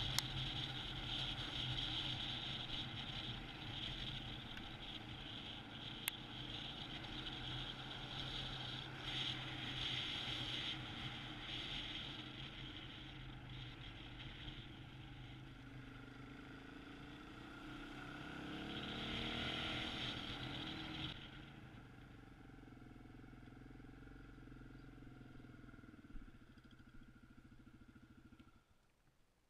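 Single-cylinder dual-sport motorcycle engine running at road speed with wind noise on the microphone. About two-thirds of the way in the engine pitch swings and the wind noise falls away as the bike slows, then the engine runs quietly at low speed and stops suddenly near the end.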